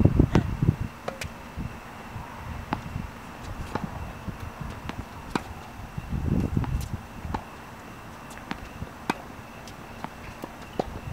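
Tennis balls being hit with rackets and bouncing on a hard court: sharp pops, some faint and distant, scattered irregularly throughout. Low rumbling noise at the start and again about six seconds in.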